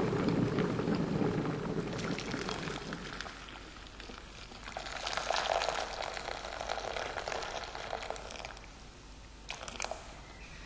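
Electric kettle of just-boiled water rumbling and dying away over the first few seconds, then hot water poured from the kettle into a glass bowl for about four seconds. A couple of sharp knocks follow near the end.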